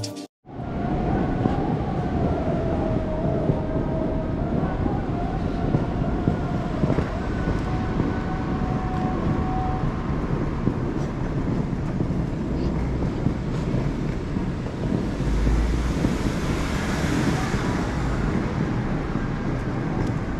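Outdoor traffic and engine noise in front of an airport terminal: a steady rumble and hiss with a faint wavering whine. The low rumble swells about fifteen seconds in, and the hiss rises briefly just after.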